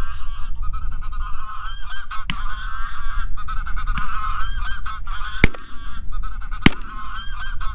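Goose honking: a steady run of repeated honks, with geese flying in over the decoys. Two sharp bangs about a second apart, a little past the middle, are the loudest sounds.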